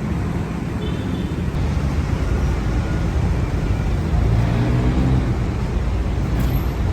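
Busy city road traffic: a steady rumble of cars and other vehicles passing, with one engine briefly louder about four to five seconds in.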